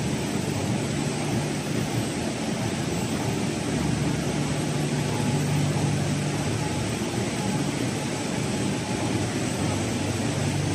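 Drying-room air units and their fans running: a steady rushing whoosh over a low mechanical hum.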